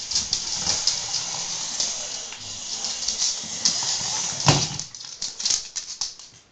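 A small dog scuffling and nosing among model train pieces on a wooden floor: irregular clicks and scratchy rustles, with one sharp knock about four and a half seconds in.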